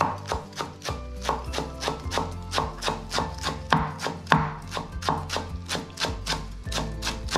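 Chef's knife chopping fresh parsley on a wooden cutting board: quick, even knocks of the blade on the board, about four a second, over background music.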